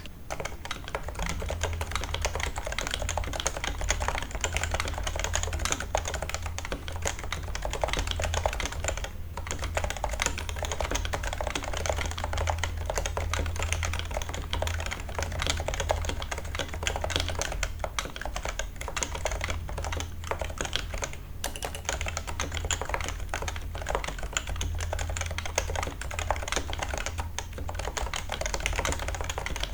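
Continuous fast typing on a keyboard with Topre 55g uniform-weight electrostatic capacitive switches: a rapid stream of keystrokes, broken by brief pauses a few times.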